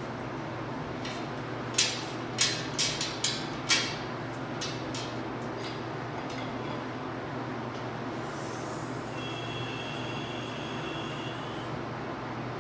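Five or six sharp metal clanks in quick succession about two seconds in, from parts and tools being handled during engine removal. Later a high, steady squeal lasts about two seconds, over a constant background hum.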